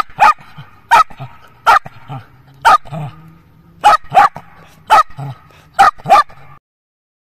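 Shetland sheepdog barking, about ten short, sharp barks, some in quick pairs. The sound cuts off suddenly near the end.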